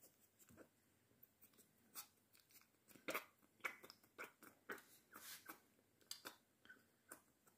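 American Staffordshire Terrier puppy lapping milk from a plastic bowl: faint, irregular wet smacks and clicks, two or three a second, busiest in the middle.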